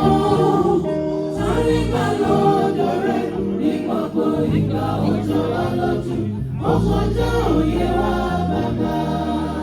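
A church choir singing a gospel song in parts over instrumental accompaniment, with sustained low bass notes moving under the voices.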